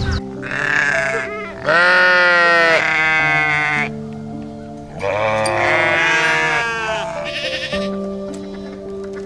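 A farm animal bleating: two long, quavering calls, with a shorter one just before them. Calm background music plays throughout.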